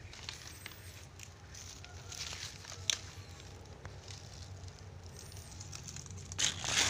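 Footsteps crunching over dry banana leaves and twigs, with scattered crackles and a sharp click about three seconds in. A louder rustle of dry leaves comes near the end.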